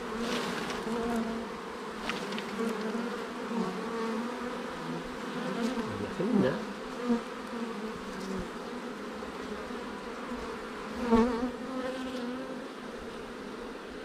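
Honeybees buzzing steadily around an open hive, with single bees flying close past the microphone, their buzz swelling briefly, once sliding in pitch about six seconds in and loudest about eleven seconds in.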